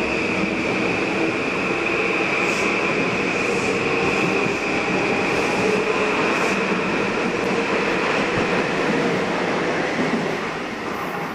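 Metro-North Kawasaki M8 electric multiple-unit train running past at close range: a steady rush of wheels on rail with a high whine through it, falling away near the end as the train clears.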